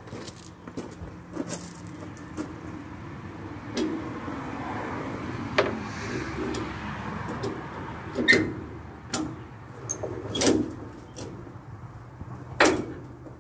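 Scattered sharp clanks and knocks, about eight of them, as cargo straps and their hooks are pulled off a flatbed trailer's load. A longer rushing sound runs through the middle.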